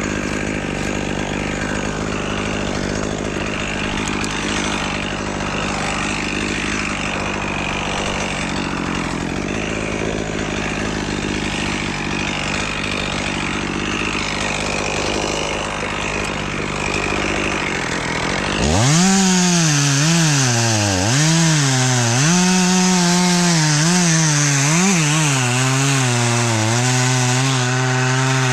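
Chainsaw running steadily under load as it cuts through a tree trunk. About two-thirds in, the sound changes abruptly to a chainsaw close by, revving up and down several times before holding at a steady speed.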